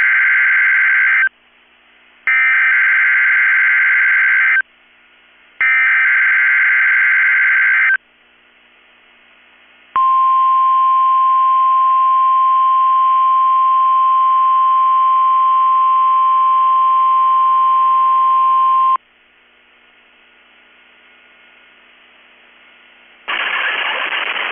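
NOAA Weather Radio SAME alert header for a Required Weekly Test: three bursts of harsh digital data screech, each about two seconds long and a second apart. After a short pause the steady 1050 Hz weather-radio warning alarm tone sounds for about nine seconds and then cuts off.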